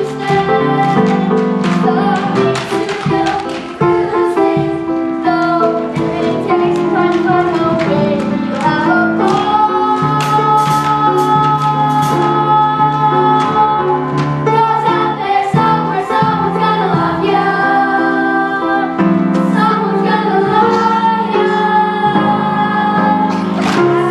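Musical-theatre song: voices singing over instrumental accompaniment, with long held notes around the middle.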